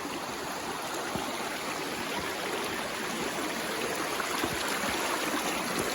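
Mountain stream rushing over rocks, a steady rush of water that grows slightly louder toward the end.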